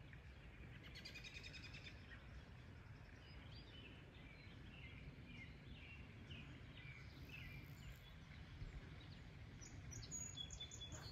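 Faint birdsong: a quick trill about a second in, then a string of short chirps, over a low steady rumble.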